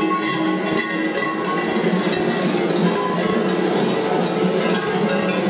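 Large kukeri bells worn by fur-costumed mummers clanging continuously as they move, many bells of different pitches ringing over one another in a dense, unbroken jangle.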